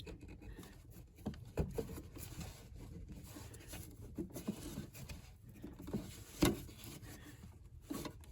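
Flat screwdriver prying at the rubber dust boot on a car's steering rack: faint scraping with scattered light clicks and knocks, the sharpest a little after six seconds in.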